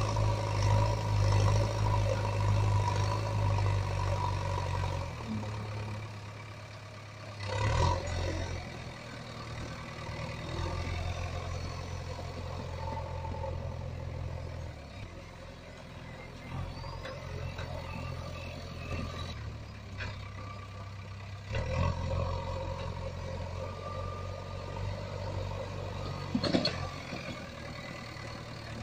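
Engine sound of a toy JCB backhoe loader: a low, steady drone that drops and comes back several times, with a knock about eight seconds in and a sharp click near the end.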